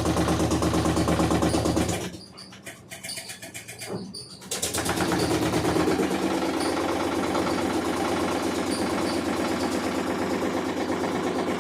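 LG top-load washing machine running with the loud, rough mechanical noise of its faulty gearbox. The motor and gearbox stop briefly about two seconds in and start again some two and a half seconds later, as in the alternating agitation cycle.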